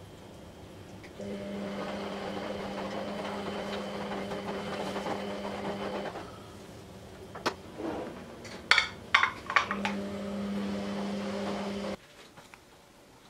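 A metal knife clinking and scraping against the rim of a ceramic ramekin several times, sharp clicks about eight to ten seconds in, as it is run around the edge to loosen a set pudding. A steady electric hum sounds on and off behind it and cuts off suddenly near the end.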